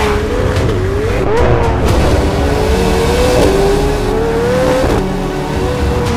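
McLaren 750S's twin-turbocharged V8 pulling hard at high revs as the car drives at speed. The note climbs steadily for a couple of seconds and drops sharply, as at an upshift, about five seconds in.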